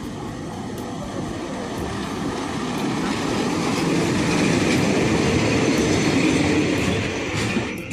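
Train running along the rails, a steady rumbling noise that swells over a few seconds and eases off near the end.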